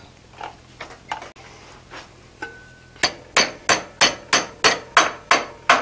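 A ball-peen hammer of about one pound striking a red-hot iron bar clamped in a vise, working the end of a cabinet handle down into its bend. A few light knocks and clinks come first, then about three seconds in a run of about nine quick, even blows, about three a second.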